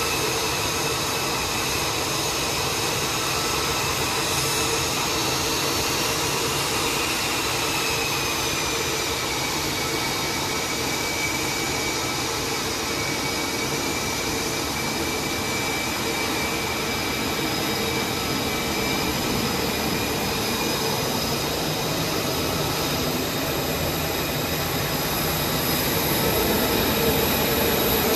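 Carrier fighter jets' engines running on the flight deck: a steady jet noise with several high whining tones, one whine sliding down in pitch about eight seconds in. The noise grows a little louder near the end.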